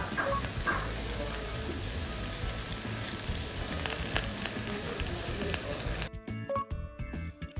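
Inobuta (wild boar–pig cross) steak sizzling on a hot iron sizzle plate under melting butter and garlic chips: a steady hiss with small crackles. About six seconds in, the sizzling cuts off suddenly and background music with held notes takes over.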